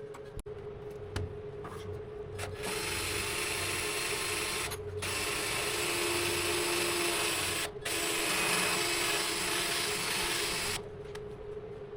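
Electric welding arc crackling as tack welds are laid on steel tailgate hinges, in runs of a few seconds with brief breaks, starting a couple of seconds in and stopping near the end. A steady hum runs underneath.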